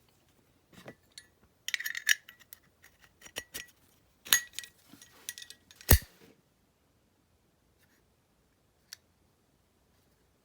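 Metallic clicks and clinks of a vintage WWII-era Zippo lighter being handled. They come as a quick cluster about two seconds in, more scattered clicks after, and the loudest, a sharp clack, about six seconds in, then one faint click near the end.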